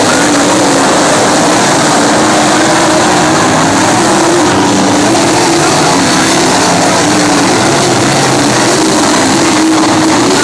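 A field of winged dirt-track sprint cars racing, many engines running together, loud and continuous, the pitch wavering up and down as cars come through the turns and past.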